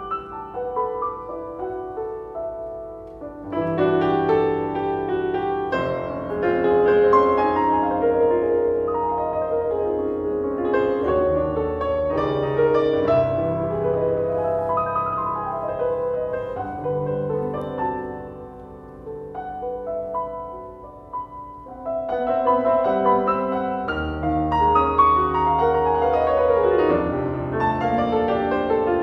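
Steinway grand piano played solo in a jazz style, with rich chords over low bass notes. It starts softly, grows louder about four seconds in, eases off before the twenty-second mark and then builds again.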